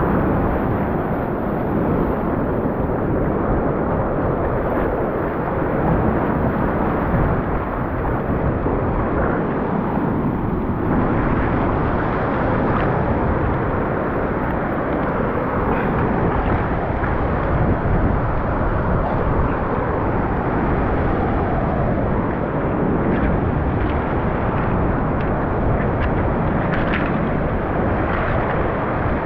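Steady rushing noise of sea surf and wind on the microphone, with a few faint ticks near the end.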